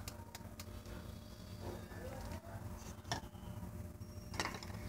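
Faint clinks and knocks of small hard objects being handled on a countertop, with two sharper knocks about three and four and a half seconds in.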